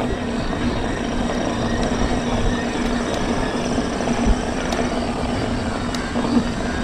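Mountain bike riding along a trail: a steady rushing noise of tyres and air, with a steady low hum running under it.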